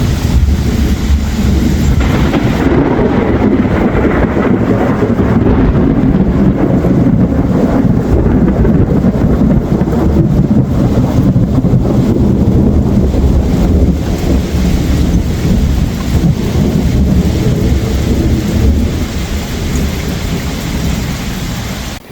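A long, loud roll of thunder rumbling on for about twenty seconds over steady rain, stopping suddenly at the end.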